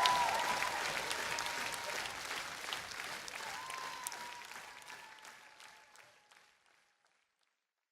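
Large audience applauding and cheering, dying away steadily to silence over about six seconds.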